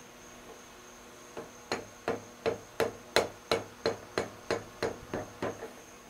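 Cross-feed screw of a 14½-inch South Bend lathe being turned and drawn out of the cross slide. It gives a regular series of sharp metallic clicks with a short ring, about three a second, starting about a second and a half in.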